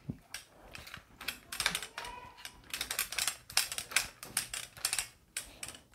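Clear plastic packaging crinkling and rustling, with irregular clicks and taps, as hands handle a spin-mop refill and its wrapping.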